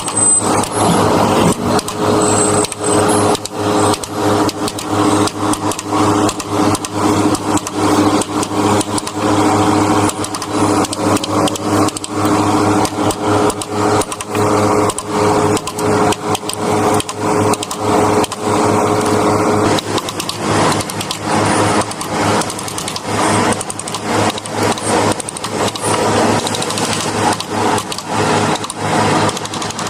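Hand carving in wood: a mallet striking a carving chisel in rapid, irregular taps, over a steady hum that partly drops away about two-thirds of the way through.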